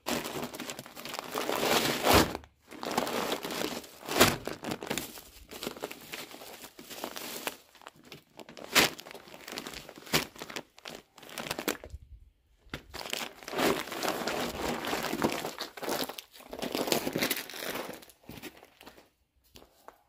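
A plastic shopping bag and a bag of bird seed crinkling and rustling as they are handled and the seed bag is pulled out of the shopping bag. It comes in irregular stretches, with a few sharper, louder crackles.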